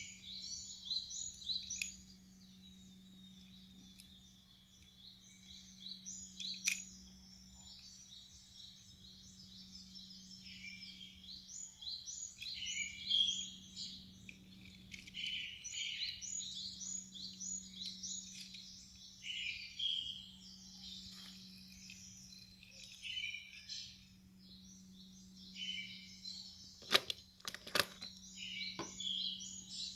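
Birds chirping busily and without a break, many short overlapping calls, over a steady low hum. There are a few sharp clicks, one about a quarter of the way in and three close together near the end.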